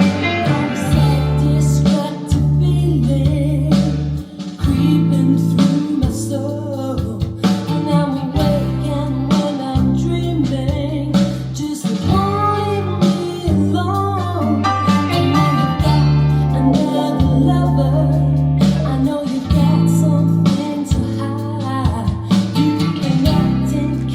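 Recorded music played through Linn 360 hi-fi loudspeakers in a room: a song with singing and guitar over a heavy bass line that steps between notes about once a second.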